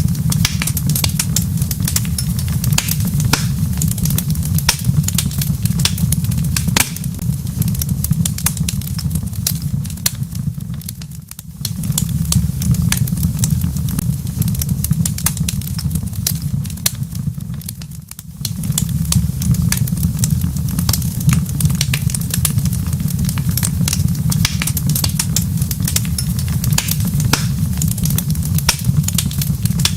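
Wood fire in a fireplace crackling, with many scattered sharp pops and snaps over a steady low rumble of burning. The sound dips briefly twice, about a third and about two thirds of the way through.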